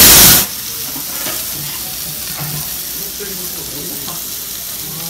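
Steak sizzling on a hot iron serving plate: a steady, even hiss. A much louder rush of noise cuts off suddenly about half a second in.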